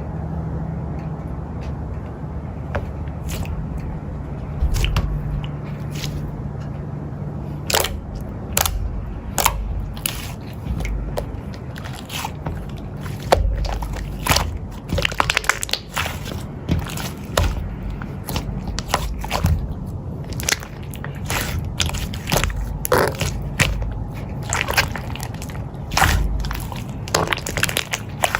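Eating sounds at a meal: scattered short clicks and crunches over a steady low hum, the clicks coming more often in the second half.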